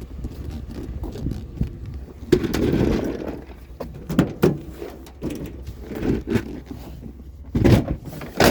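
Hard objects being handled: irregular knocks, scrapes and clunks, with a longer scraping stretch a couple of seconds in and a loud clunk near the end.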